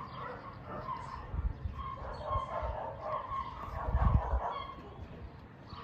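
A dog barking and yapping repeatedly, with a few low thumps, the loudest about four seconds in.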